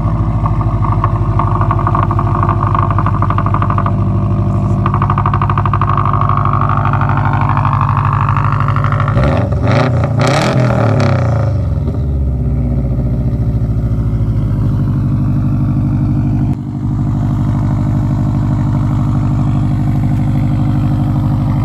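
Subaru WRX STI's turbocharged flat-four idling steadily through its exhaust, with one quick rev of the engine about halfway through before it settles back to idle.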